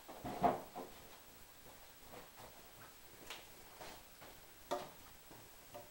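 A few scattered light clicks and knocks of things being handled, the loudest about half a second in.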